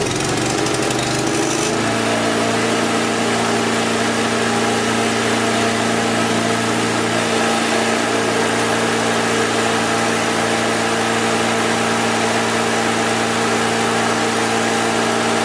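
A small engine running steadily at one constant speed, settling into an even pitch about two seconds in.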